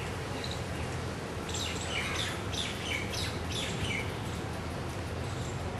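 Birds chirping in a quick run of short calls over a steady low hum.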